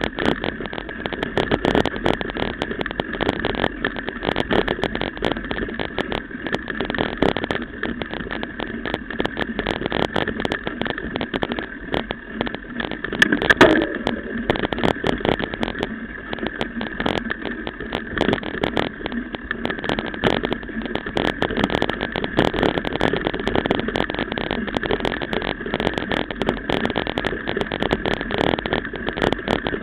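Mountain bike ridden over a bumpy dirt forest trail, heard through a camera carried on the bike or rider: a constant clatter of rapid knocks and rattles from the trail's bumps, mixed with a steady rushing of tyres and wind. There is a louder jolt about halfway through.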